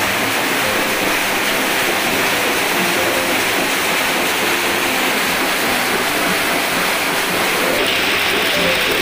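Background music with faint short notes, nearly buried under a loud, steady hiss that does not change in level.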